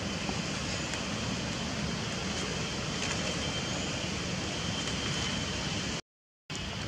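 Steady outdoor background noise with a faint high steady tone running through it; the sound cuts out completely for about half a second near the end.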